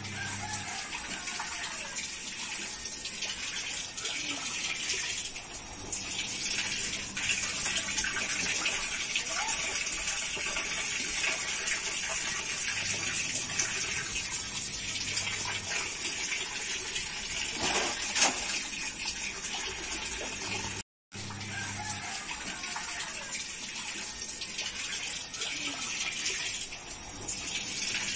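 Water pouring steadily from a PVC pipe into a plastic catfish-rearing drum. A single sharp knock sounds partway through.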